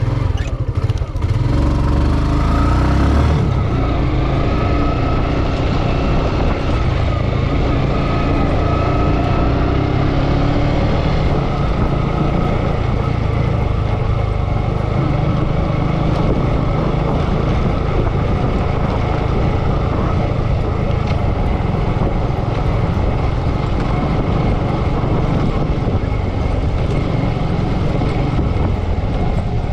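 Motorcycle engine running steadily at low road speed on a dirt track, mixed with heavy wind rumble on the microphone.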